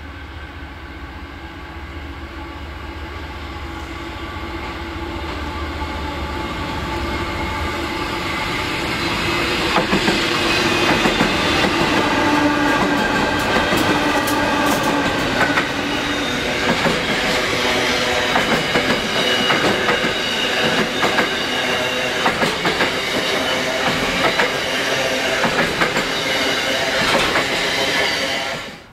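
Freight train approaching and passing: the diesel locomotive's engine grows steadily louder over about ten seconds, then the wagons run by with rhythmic clickety-clack of the wheels. The sound cuts off abruptly just before the end.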